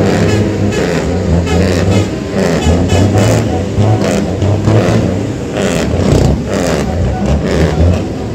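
Loud, distorted sound-system music with a heavy bass line played at an outdoor event.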